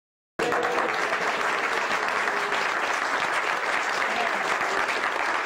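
A roomful of guests applauding steadily, with a few voices mixed in. The clapping cuts in after a split second of silence at the start.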